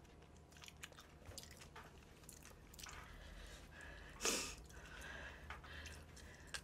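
A person faintly chewing seasoned fried chicken, with soft mouth clicks, and one short louder hissing noise about four seconds in.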